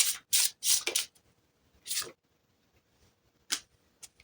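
Tarot cards being shuffled and drawn: three quick papery swishes in the first second, another about two seconds in, then two short card flicks near the end.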